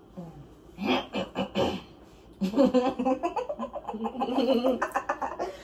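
A woman laughing hard: a few short bursts, then a long run of rapid, pulsing laughter from a little before halfway through.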